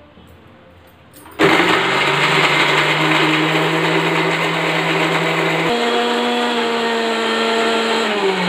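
Electric mixer grinder switching on with a sudden start about a second and a half in, then running with a steady whine as it grinds a mustard-seed masala paste. Its pitch steps up and holds about two-thirds of the way through.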